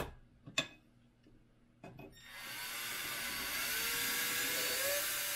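Cordless drill with an eighth-inch bit widening a hole: a few clicks and knocks first, then from about two seconds in the drill runs steadily, its motor whine rising in pitch and then holding level.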